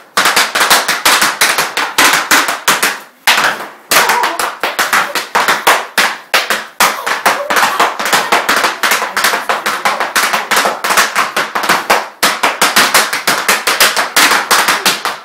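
Rapid Irish-dance steps on a kitchen floor: a fast, dense run of sharp taps and stamps, about eight to ten a second, with short breaks about three and a half, seven and twelve seconds in.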